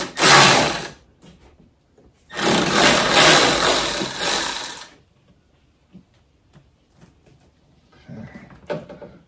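Cordless Milwaukee power ratchet running in two bursts, a short one at the start and a longer one of about two and a half seconds, backing out an 8 mm nut.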